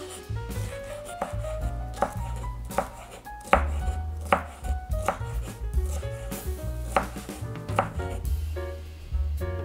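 Chef's knife dicing mini bell peppers on a wooden cutting board: unhurried blade strikes on the board, a little more than one a second, with a short pause past the middle.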